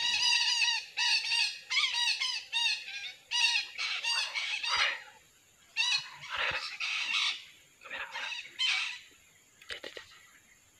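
Wild parakeets squawking: a rapid series of short, harsh calls in the first five seconds, then scattered calls that grow sparser and fainter near the end.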